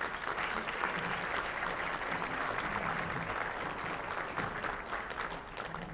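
Audience of dinner guests applauding a speaker's introduction, a steady patter of many hands clapping that fades near the end.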